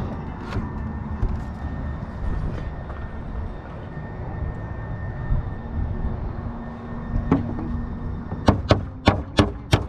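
Claw hammer driving nails into a new pine board on an old plank roof deck: a run of sharp blows, about three a second, starting near the end, over a steady low rumble.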